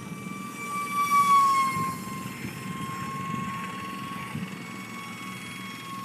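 Electric ducted fan of an E-flite UMX Habu 180 DF RC jet whining in flight. The whine swells and drops in pitch between one and two seconds in as the jet passes, then holds steady.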